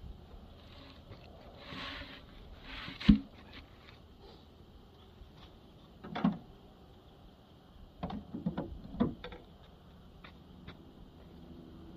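A few separate heavy knocks and thuds of a log being shifted against a pickup truck's tailgate: one sharp, loud knock about three seconds in, a duller thud about halfway, and a quick cluster of knocks near the end.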